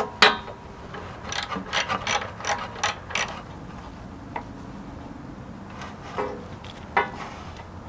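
Hand ratchet with an extension clicking as it backs out 8 mm screws from a car's underbody access panel: a sharp click, then a quick run of about ten ratchet clicks, then a few single clicks.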